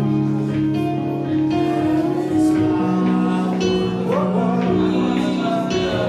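Worship music: guitar and long held chords, with a voice singing along.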